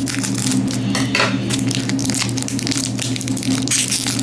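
Foil wrapper of a Pokémon Steam Siege booster pack crinkling and crackling as it is snipped open with scissors and handled, a quick run of sharp crackles.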